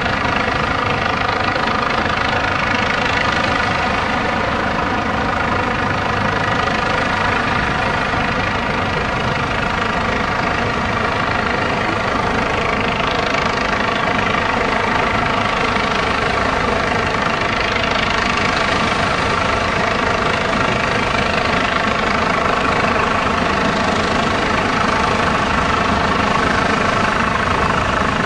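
Airbus H145 (BK117 D-2) helicopter hovering, its rotors and twin turboshaft engines running steadily at constant power, with a steady whine over the rotor noise.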